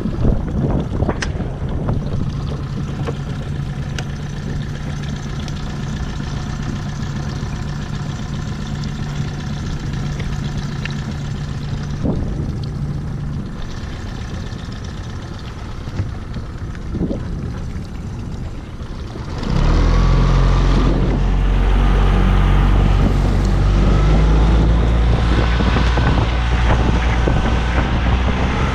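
Tohatsu 9.8 hp outboard motor running steadily at low speed with an even hum. About two-thirds of the way through it is opened up and the sound gets much louder, with a rush of wind and water over the hull.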